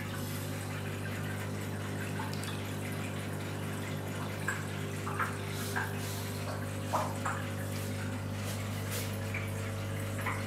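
Aquarium filters and air stones running: water bubbling and trickling over a steady low hum, with a few small drips or bubble pops in the middle.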